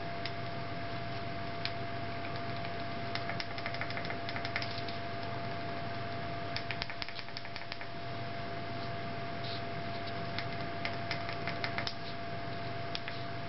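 Small tactile push buttons on a homemade controller board being pressed rapidly in runs of quick clicks, several short bursts. A steady hum with a thin constant whine runs underneath.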